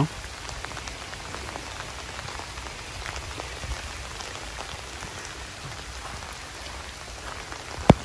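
Steady pattering of rain with many small irregular drop ticks, over a low wind rumble on the microphone. A single sharp knock near the end is the loudest sound.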